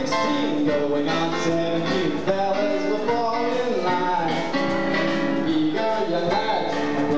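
Music from a live stage musical: instrumental accompaniment playing steadily between sung lines.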